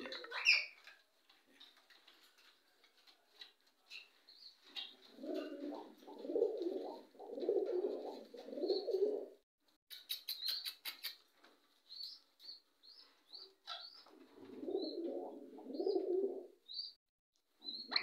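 Pigeons cooing in a string of low phrases, pausing, then cooing again. A quick run of clicks comes about ten seconds in, and short high bird chirps follow.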